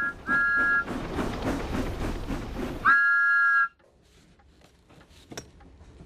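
Steam locomotive chuffing, with a two-note whistle giving two short toots at the start and a longer toot about three seconds in. Then it cuts off suddenly to a quiet room with faint handling sounds.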